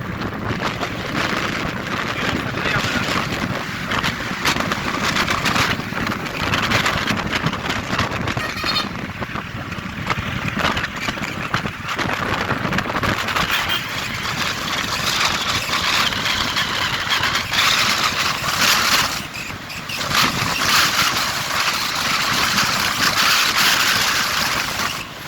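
Wind rushing over the microphone together with engine and road noise while riding a motorbike along a highway, with a brief lull about 19 seconds in.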